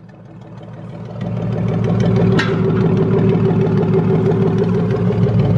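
Gasoline engine of a Chevy single-cab pickup idling through its cut-off exhaust, with a diesel exhaust tip held loosely over the pipe. The steady, deep idle grows louder over the first second, and there is one short knock about two and a half seconds in.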